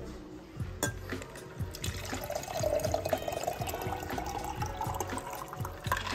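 Mixed drink poured from a rose-gold cocktail shaker through its strainer lid into a glass. The splashing stream's pitch rises steadily as the glass fills. A sharp click comes just under a second in.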